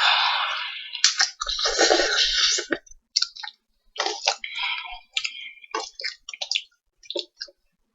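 A person eating instant noodles close to the microphone: two long slurps or hissing breaths in the first three seconds, then chewing with wet smacking and clicking mouth sounds.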